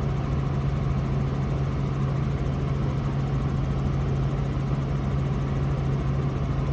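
Robinson R44 helicopter heard from inside the cabin in flight: a steady drone of engine and rotor noise with a strong, even low hum.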